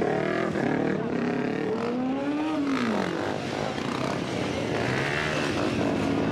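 Motorcycle engines running and revving, their pitch rising and falling, with one clear rise and fall about two to three seconds in.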